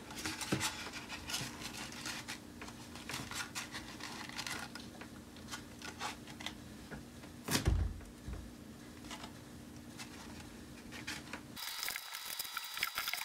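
Dry corn husk strips rustling and crackling as hands wrap them around a cardboard tube, with one thump about halfway through. A low hum sits underneath and cuts off near the end.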